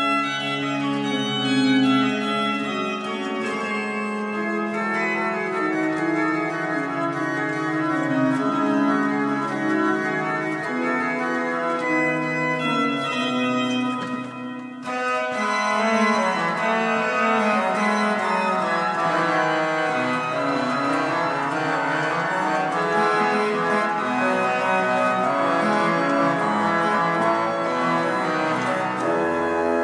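A 1793 Holzhey pipe organ playing a French Baroque piece on its reed trumpet stop, with solo lines in the bass and treble. There is a brief break about halfway, after which the music grows fuller and brighter.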